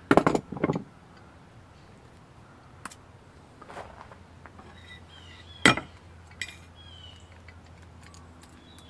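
Hand tools (pliers and a screwdriver) set down on a table with a burst of clattering knocks in the first second, then scattered light clicks and a single sharp knock about six seconds in. Birds chirp briefly in the background.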